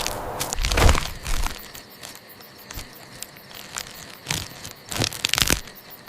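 Dry crackling and crunching sounds, a loud rushing burst about a second in and another near the end, with scattered sharp crackles between.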